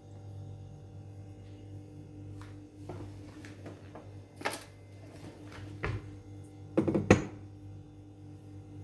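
A steady low hum with a few scattered knocks. A short clatter of knocks comes about seven seconds in, which is the loudest part.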